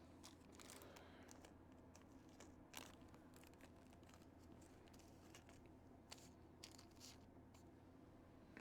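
Near silence: faint room tone with a steady low hum, and a few faint scattered rustles and light clicks of small parts and packets being handled at a workbench.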